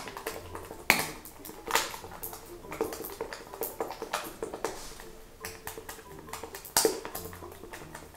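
A spoon clinking and scraping against a bowl as thick slime is stirred, a run of irregular sharp clicks with softer scrapes between. The loudest clinks come right at the start, about a second in, near two seconds and near seven seconds.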